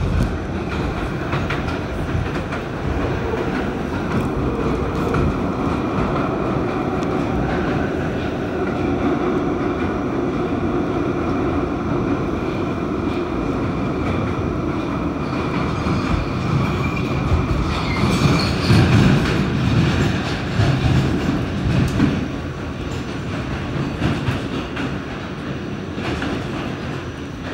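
Pullman Standard R46 subway car running at speed through a tunnel, heard from inside the car: continuous noise of wheels on the rails, getting louder about two-thirds of the way through with a brief high wheel squeal.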